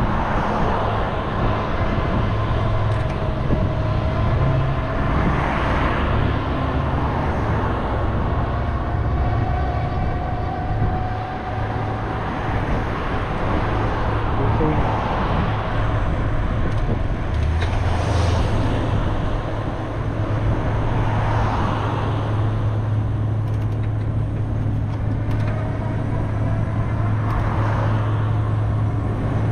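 Road traffic: motor vehicles passing close by, each swelling and fading over a few seconds, over a steady low rumble.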